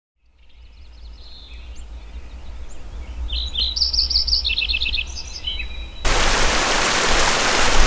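Birds chirping and trilling over a low rumble, fading in from silence. About six seconds in, the loud, even rush of a rocky mountain stream takes over.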